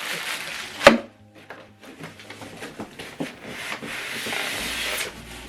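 Unboxing handling noise: packaging rustling and rubbing as items are taken out of the box, with one sharp knock about a second in and scattered light taps and clicks after.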